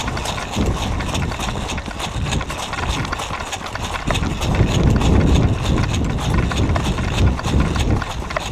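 Running footsteps on grass with tactical gear and an airsoft rifle rattling at each stride, the thumps close and heavy to a camera worn by the runner.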